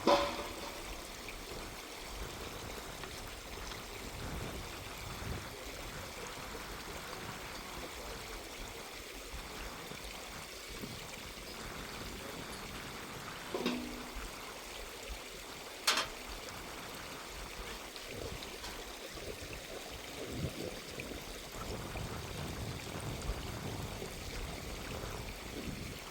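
Water running steadily, like a stream or trickle, with a couple of short sharp knocks a little past the middle.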